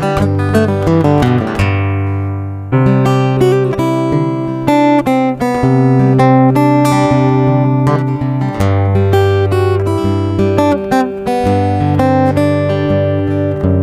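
Background music led by acoustic guitar, with plucked and strummed chords over a bass line.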